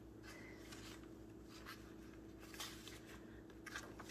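Faint soft rustling of paper as journal pages and a paper pocket are handled, over a low steady hum.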